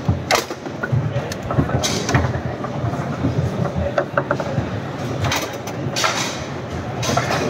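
Murmur of many voices in a large hall, with scattered sharp clacks and knocks of foosball balls and rods on the tables, a quick run of ticks about four seconds in.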